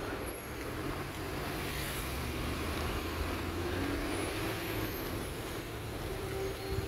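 Steady road traffic noise: a low hum of passing cars.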